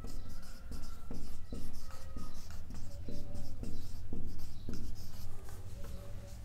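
Marker pen scratching and squeaking across a whiteboard in short strokes as words are written.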